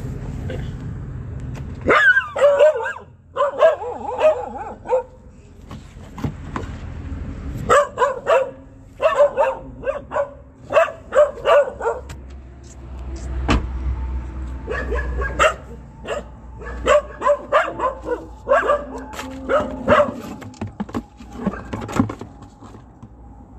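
Street dog barking in quick repeated bouts, several short barks a second, with pauses between bouts.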